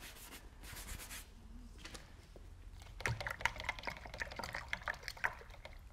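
A brief brushing swish, then from about three seconds in a couple of seconds of quick little clicks and wet splashing as a paintbrush is worked in water and white acrylic paint.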